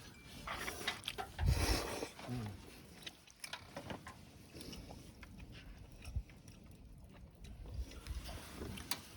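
Quiet eating sounds: a person eating noodles, with a louder slurp about a second and a half in and scattered light clicks of chopsticks against the bowl.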